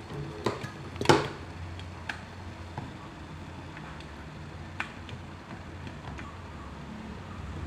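Stainless steel electric kettle being handled: a few sharp clicks and knocks, the loudest about a second in with a short ring, over a low steady hum.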